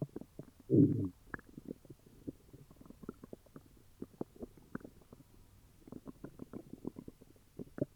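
Upset stomach gurgling and growling: a quick run of small low gurgles and pops, with one louder, longer growl about a second in and a denser spell of gurgles near the end.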